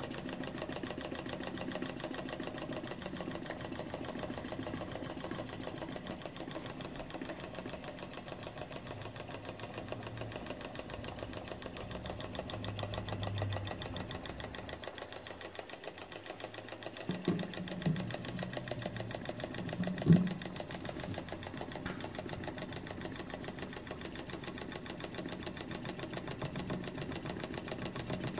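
Small model Stirling (hot-air) engine running steadily, its pistons and linkage making a rapid, even ticking clatter. There are a couple of short knocks about two-thirds of the way through.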